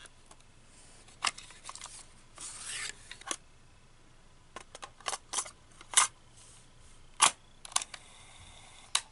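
Plastic clicks and snaps of a Jensen portable cassette player's keys and housing being pressed and handled: a dozen or so sharp clicks at irregular intervals, with a brief rubbing sound about two and a half seconds in.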